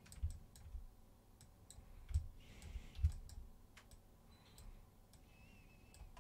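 Quiet, scattered clicks of a computer mouse, with a few soft low thumps.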